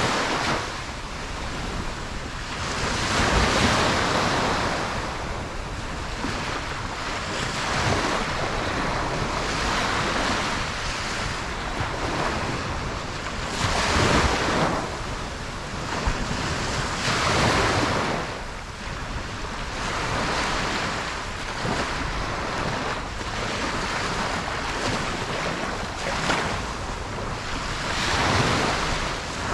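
Ocean waves breaking on a beach, a continuous wash of surf that swells and fades every few seconds, with wind on the microphone.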